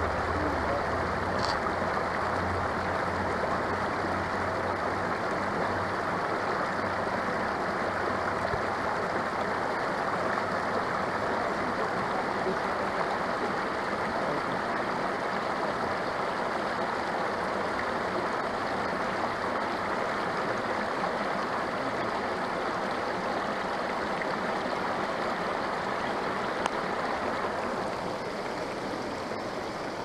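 Shallow mountain creek flowing over small rock ledges and cascades, heard from just above the water surface: a steady, unbroken rush of water.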